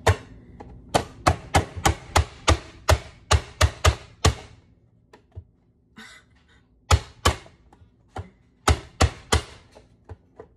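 Manual push-down vegetable chopper, its plastic lid slammed down again and again onto a red onion to force it through the dicing grid: a burst of about a dozen sharp knocks at roughly three a second, a pause, then two knocks and then four more. The onion is hard to push through and takes repeated blows.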